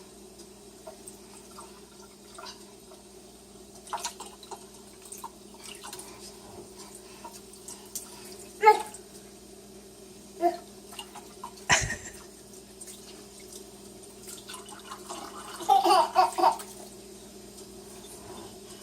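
Water splashing and dripping in a kitchen sink as a child plays in it, with scattered knocks of objects against the sink. There is a sharp knock about twelve seconds in and a louder flurry of splashes near the end, over a steady low hum.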